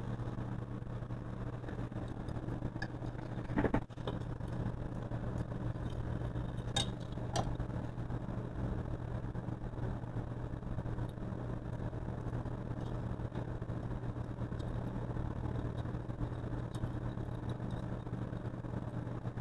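A steady low mechanical hum, like a fan or motor, with a few faint clicks and taps from small parts being handled.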